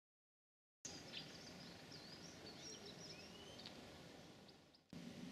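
Faint outdoor ambience with small birds chirping and whistling in short, quick phrases, starting about a second in after silence. The sound fades and cuts off briefly about five seconds in, then resumes.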